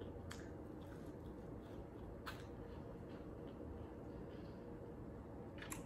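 Quiet room tone with three faint short clicks, near the start, about two seconds in and near the end, the kind of soft mouth sounds made while chewing a bite of pizza.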